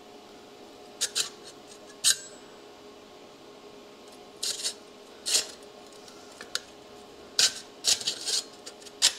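Plasma-cut 14-gauge sheet-steel Christmas-tree cutouts clinking and scraping against each other and the table as they are picked up and test-fitted together. The clinks are sharp and irregular, a dozen or so, over a steady low hum.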